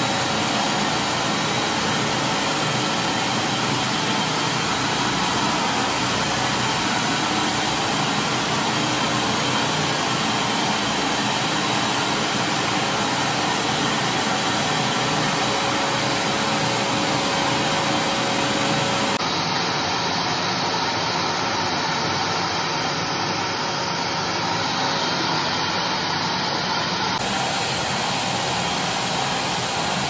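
Wap GTW Inox 20 1600 W wet-and-dry vacuum cleaner running steadily at full power: a loud, even rush of motor and suction. It changes slightly twice where the footage is cut.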